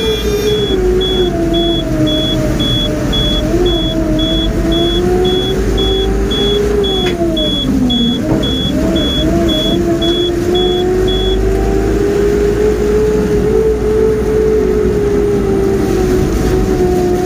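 Mobile crane's engine running as it drives, heard from the cab; its pitch sinks about eight seconds in, then climbs steadily again. A regular electronic beep, about two a second, sounds over it and stops about eleven seconds in.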